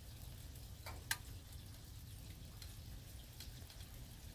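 Two sharp clicks about a second in, the second louder, from the expanding-foam dispensing gun held against the foundation wall, with a few faint ticks over a quiet steady hiss.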